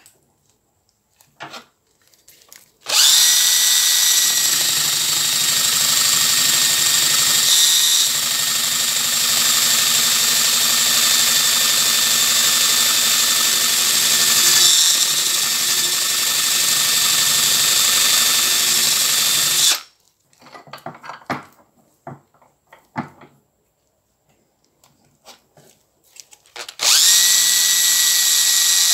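Electric drill spinning a brass wire wheel against a rusty Knipex side cutter, brushing off the rust: a steady high whine with a scrubbing hiss. It starts about three seconds in and stops about twenty seconds in, then starts again near the end. In the pause there are a few light clicks and knocks.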